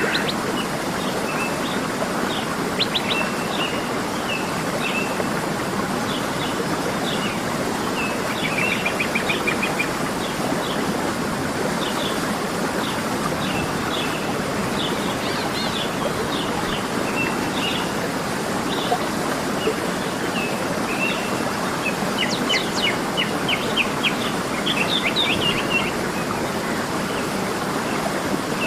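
Waterfall rushing steadily, with small birds chirping over it throughout. Quick trilled runs of notes come about a third of the way in and again near the end.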